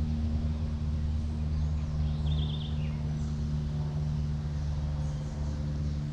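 A steady low engine hum, with birds chirping lightly over it and a short trill about two seconds in.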